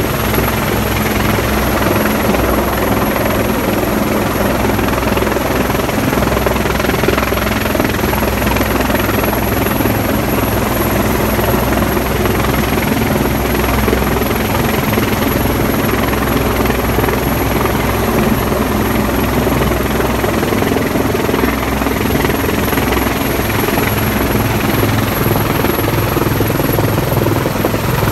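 Helicopter hovering close overhead: loud, steady rotor and turbine noise that does not change.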